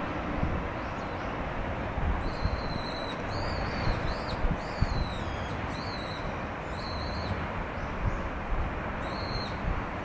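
A bird giving a run of about eight short, high-pitched calls with brief gaps, some falling in pitch at the end, over a steady low rumble and hiss of outdoor ambience.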